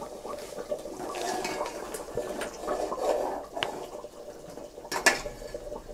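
A metal ladle stirring thick gravy in an aluminium pot, with soft scraping and sloshing and a few metal-on-metal clinks; the sharpest clink comes about five seconds in.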